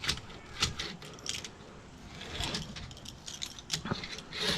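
Scattered light clicks and short scrapes of a door screen frame being worked on, with the screen rolling tool and hands pressing the spline into its channel.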